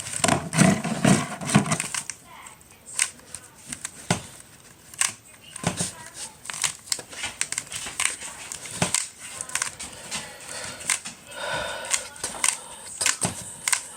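A plastic Rubik's cube being turned by hand: irregular clicks and clacks of the layers snapping round, several a second.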